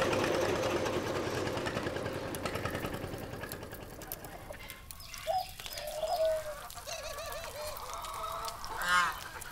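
A few short honking calls of domestic waterfowl, over a low steady rumble that fades away in the first few seconds.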